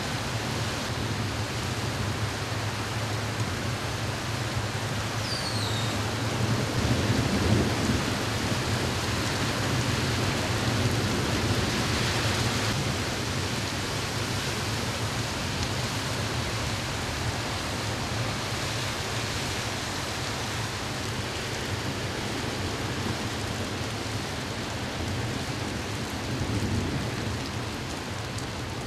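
Heavy rain pouring down in a steady downpour, with a low rumble swelling about seven seconds in.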